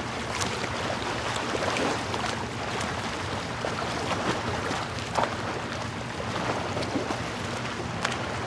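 Beach ambience: a steady wash of ocean surf and wind, dotted with faint short clicks.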